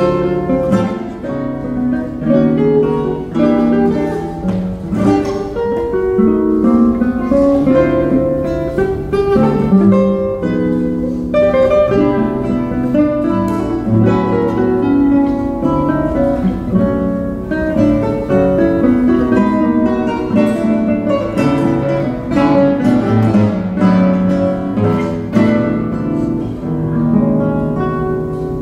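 Two nylon-string classical guitars playing together in a dense, contrapuntal passage: quick plucked notes and chords overlapping without a break, fading away near the end.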